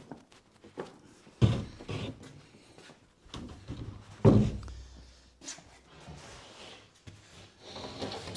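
A few thuds and knocks of wood being handled and set down, the two loudest about a second and a half in and just past four seconds in.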